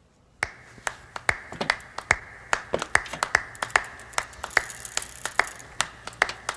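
Sharp finger snaps on a steady beat, about two and a half a second, beginning half a second in: the snapped intro of a song track.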